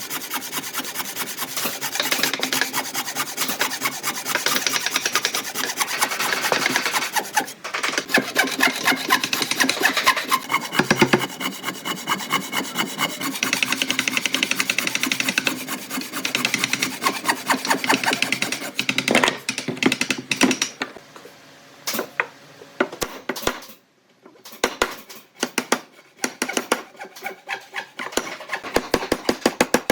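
A hand tool rasping across solid wood in rapid, dense scraping strokes. About two-thirds of the way in the work thins out into separate short scrapes and taps with quieter gaps between.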